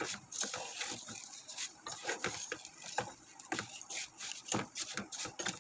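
Wooden spatula stirring and scraping thin noodles as they toast in oil in a pan, giving quick, irregular scrapes and light taps.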